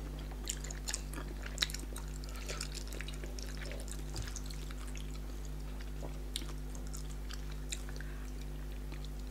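People eating with their hands: soft chewing, lip smacks and small wet clicks of fingers working fish and fufu in pepper soup, over a steady low hum.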